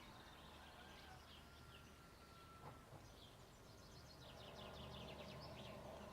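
Faint birdsong at daybreak: several small birds chirping and trilling in quick repeated notes, over a low steady hum.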